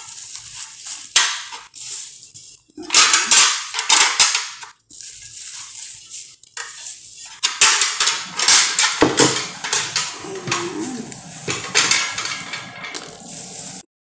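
Interchangeable metal non-stick plates of a Kenwood 3-in-1 sandwich maker clattering and scraping against one another as they are handled and stacked, in irregular bursts, with some rustling of plastic packaging.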